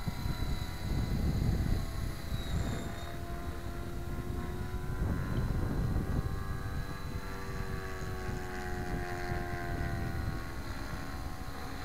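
Gaui X5 electric RC helicopter flying, its rotor and motor whine drifting slowly up and down in pitch as it moves around the sky, at a fixed 70% idle-up throttle with no governor. A low rumble of wind on the microphone runs underneath.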